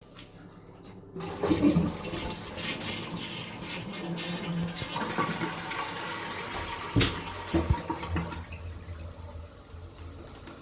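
A toilet flushing: a sudden rush of water about a second in, then steady running water that tails off near the end. A sharp knock sounds about seven seconds in.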